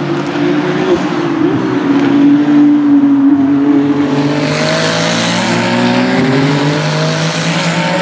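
Ferrari race car engine coming through a chicane: its note falls as it slows into the corner, it passes closest about halfway through, then the pitch climbs as it accelerates away. A steady lower engine drone runs underneath.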